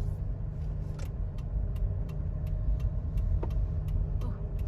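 Car interior: a steady low engine and road rumble, with a turn-signal indicator ticking about three times a second.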